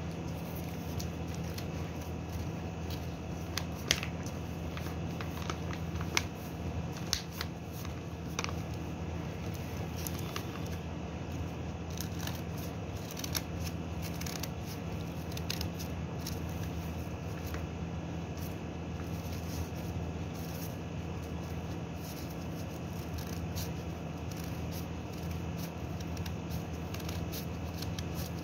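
Scissors snipping paper, with irregular snips and paper rustles, over a steady low hum.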